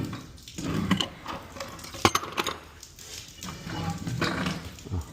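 Irregular clanks, knocks and scraping of metal tools and galvanized pipe being handled, with a sharp click about two seconds in.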